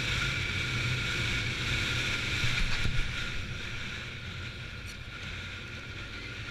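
Honda VFR750's V4 engine running at a steady note under wind and road noise while riding. It grows quieter from about four seconds in.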